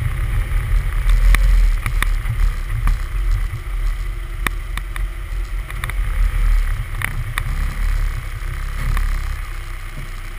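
Low rumble of wind buffeting and tyre noise at a bumper-mounted camera on a 1999 Miata rolling slowly. It dies down as the car comes to a stop, with a few sharp knocks along the way.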